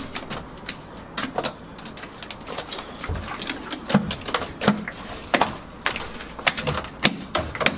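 A large mass of slime being kneaded and pulled by hand, making irregular wet clicks, pops and squelches.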